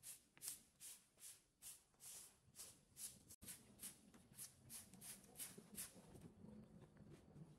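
Broom sweeping dead leaves and dirt: faint, quick swishes of the bristles, about two or three strokes a second.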